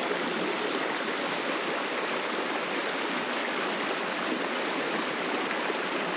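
Creek water rushing steadily over a shallow, rocky riffle.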